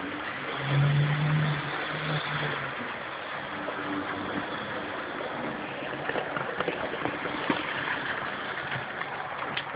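Model trains running on the layout: a steady rumbling whir of wheels and motors on the track, with a low hum sounding three times in quick succession about a second in. Sharp clicks pick up near the end as a red locomotive comes past the camera.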